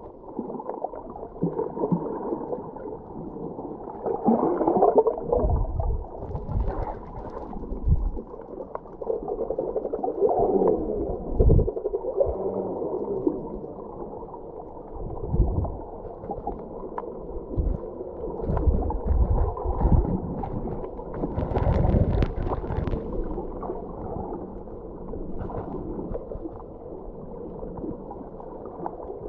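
Muffled water sound picked up by a camera held under water while snorkelling: irregular gurgling and sloshing with occasional low thumps.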